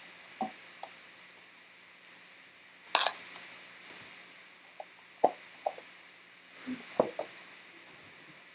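Scattered light clicks and taps of a trading-card box and its packaging being handled, with a louder short clatter about three seconds in.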